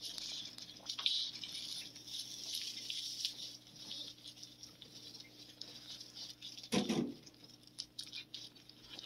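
Cat chewing a small piece of chicken treat: a run of soft, quick, crunchy clicks. A brief louder low thump about seven seconds in.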